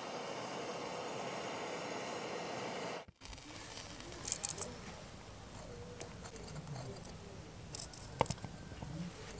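Gas torch running with a steady hiss as it heats brass and copper in a ceramic crucible, cutting off sharply about three seconds in. Then quieter light rustles and clicks, with a sharp clink near the end as metal tongs grip the crucible.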